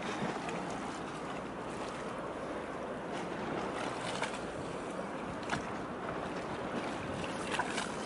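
Steady wind and water noise with no clear engine tone. A few short ticks come about four, five and a half, and seven and a half seconds in.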